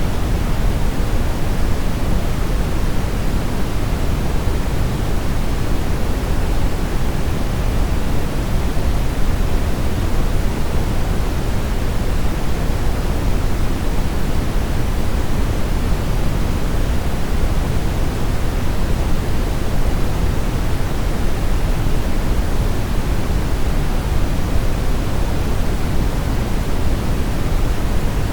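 Steady brown noise: an even, unchanging hiss weighted toward the low end, like a deep rumble.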